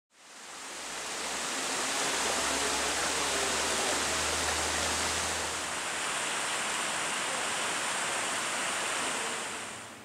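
Steady rushing hiss of strong wind, with a low rumble of wind buffeting the microphone until about halfway. It fades in at the start and drops off just before the end.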